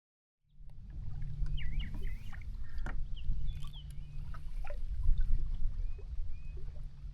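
Sound cuts in about half a second in: a kayak on the water, a low steady rumble with scattered light clicks and knocks, and short high bird chirps over it.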